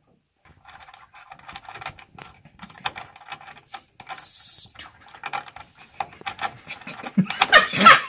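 Fingers fumbling a small screw against a motherboard and RAM sticks: faint, irregular little clicks and taps, getting louder near the end.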